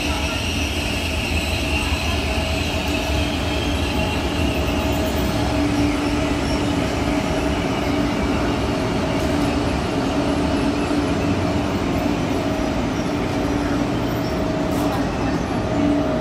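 KTX-Sancheon high-speed train rolling along the platform track: a steady running rumble with a low, even whine, and a high squeal that fades out over the first few seconds.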